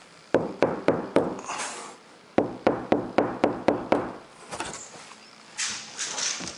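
Knuckles knocking on a steel roof panel covered with Dynamat sound-deadening mat: four quick knocks, a pause of about a second, then seven more at about four a second. The mat damps the metal, so each knock is short.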